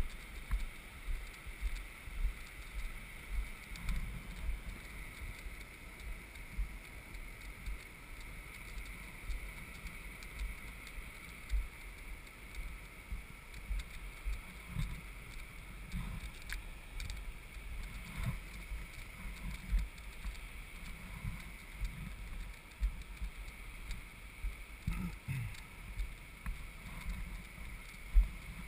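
Hand-pulled beach sand cart rolling over sand, with a low rumble and irregular knocks and thumps a few times a second as it jolts along.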